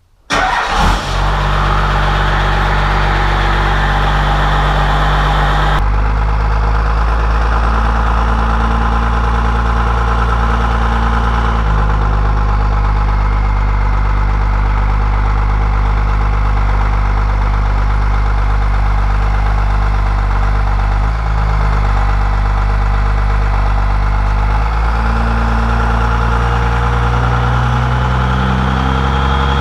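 1993 first-gen Cummins 5.9 12-valve inline-six turbo diesel running steadily, its low drone stepping in pitch a few times. A faint high turbo whistle rises near the end.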